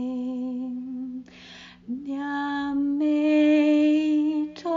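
A woman singing long, slow held tones on wordless chant syllables. There is a short intake of breath about a second and a half in, then a slightly higher note held to the end.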